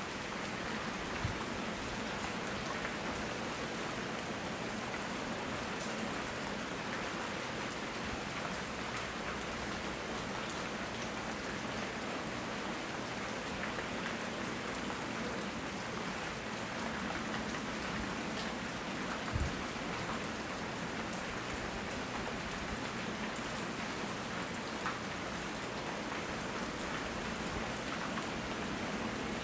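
Steady rain falling and pattering on surfaces, with a couple of brief soft knocks, one about a second in and one about two-thirds of the way through.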